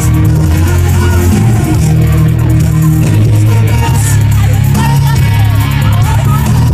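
Loud pop music played over a concert PA, carried by a deep bass line that steps between long held notes.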